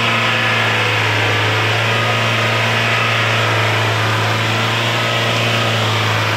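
Mahindra jeep's engine running at steady low revs as the jeep crawls in low gear through mud, a constant low hum with no revving.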